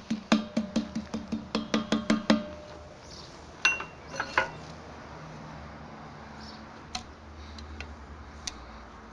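Quick, even knocks, about four or five a second, as an apple is struck by hand into the muzzle of a steel-pipe cannon, the pipe ringing with each blow. They stop after about two and a half seconds. Near the middle come a few sharp metallic clinks as a metal ramrod knocks against the pipe, then a couple of faint clicks.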